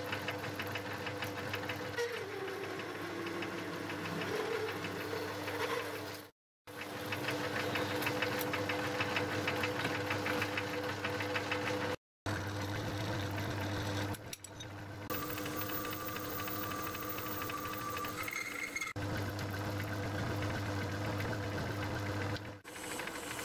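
Metal lathe running with a large twist drill boring out a dial ring held in the chuck: a steady motor and spindle hum under a fine rattling cutting noise. The sound cuts out briefly twice, and a thin whistle that steps up in pitch sounds for a few seconds in the second half.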